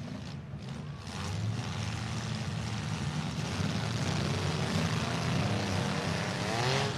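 Several compact demolition derby cars' engines revving and accelerating as the green flag restarts the heat, the racket jumping up about a second in. Near the end one engine's revs climb in a rising whine.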